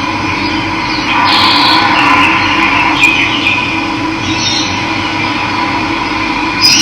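Running water flowing steadily, with birds chirping over it several times in the first half.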